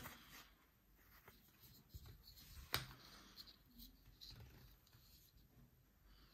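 Near silence with faint handling sounds of a wooden-handled folding knife and a leather sheath: soft rubs and small taps, and one sharper click a little before the middle.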